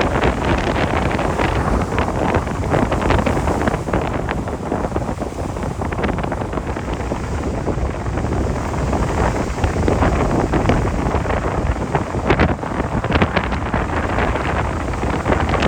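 Strong wind buffeting the microphone in constant gusts.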